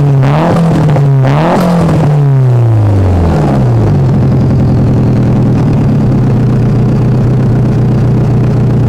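Nissan SR20DET turbocharged 2.0-litre four-cylinder, running without a blow-off valve and breathing through a Blitz Nür Spec exhaust, revved in quick blips. Each throttle lift brings a burst of turbo flutter, the chatter of boost backing up through the HKS turbo's compressor. After the last blip, under two seconds in, the revs fall away and it settles into a steady idle.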